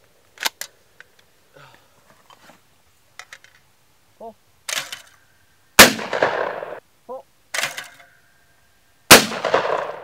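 Pump-action shotgun fired twice at thrown clay targets: two loud blasts a little over three seconds apart, each echoing away over about a second. Lighter sharp clicks come before and between the shots.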